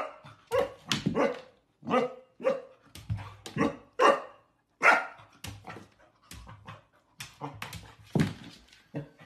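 Golden retriever puppy barking at its own reflection in a mirror: an uneven string of about twenty short, sharp barks.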